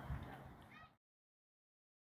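Near silence: faint background noise that cuts off to total silence about a second in.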